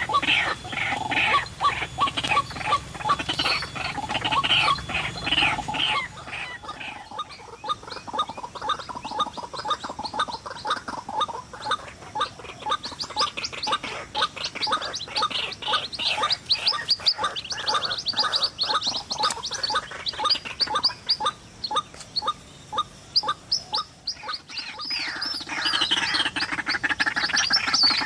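White-breasted waterhens calling: a continuous stream of rapid repeated call notes, several a second. The calls turn quieter and higher-pitched about six seconds in and grow louder again near the end.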